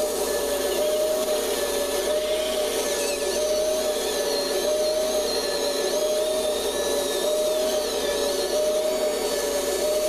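Electric motors and servos of a Kabolite 970 all-electric RC excavator whining steadily as it works. One steady tone pulses slightly about once a second, with fainter high whines that drift up and down in pitch above it.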